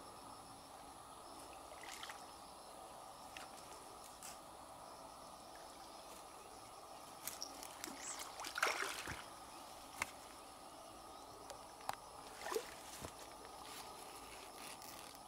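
Water splashing as a big hooked carp thrashes at the surface near the landing net, loudest about eight to nine seconds in, with a few smaller splashes after; a steady background hum runs underneath.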